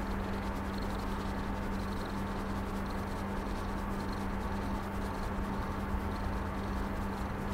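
Domestic cat purring steadily, close up, while being stroked.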